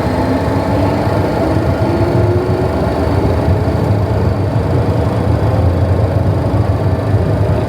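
Cessna CJ2's twin Williams FJ44 turbofan engines and the airframe's rumble heard inside the cockpit: a loud, steady low rumble with tones slowly rising in pitch as the jet accelerates.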